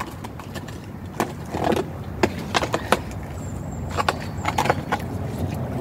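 An irregular series of sharp knocks and clicks, several in quick succession, over a steady low rumble.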